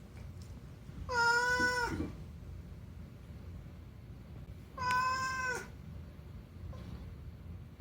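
Domestic cat meowing twice: a drawn-out meow about a second in and a shorter one about four seconds later, each ending with a downward bend in pitch.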